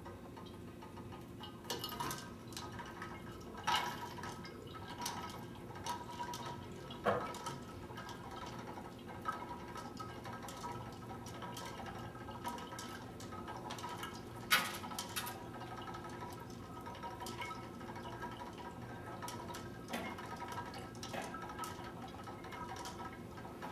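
Dry ice bubbling and sublimating in the stirred water of a glass flask: irregular small pops and gurgles, with a few louder clicks, over a faint steady hum. The bubbling is carbon dioxide gas coming off the dry ice as it dissolves into carbonic acid.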